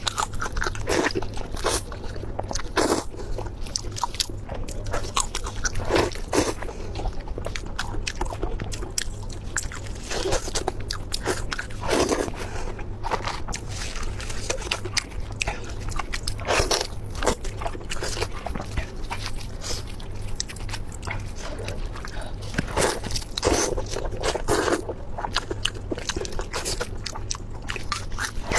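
Close-miked eating: a person chewing and biting food, with irregular short mouth sounds about every second or so, over a steady low hum.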